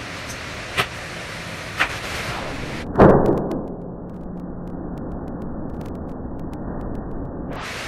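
Steady hiss of a kitchen with two sharp metal clacks about a second apart, then a loud sudden burst about three seconds in that fades over about a second, as fire flares up on the teppanyaki grill.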